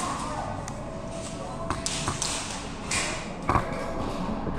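Background voices of people talking in a large indoor hall, with a few sharp knocks, the loudest about three and a half seconds in.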